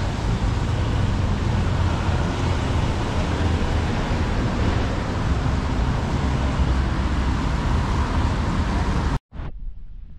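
City street traffic noise with wind buffeting the microphone, a dense rumble with no clear voices. About nine seconds in it cuts off abruptly, leaving a much quieter low hum.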